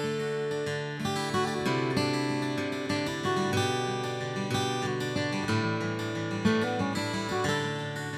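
Background music: a plucked acoustic guitar playing a steady run of notes.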